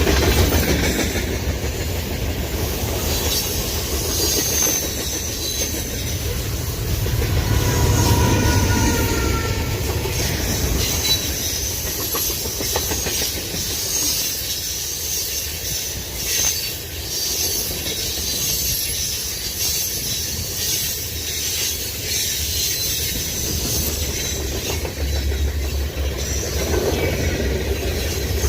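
Norfolk Southern merchandise freight train's cars rolling past with a steady rumble and wheel noise on the rails, and thin high-pitched wheel squeal running through it.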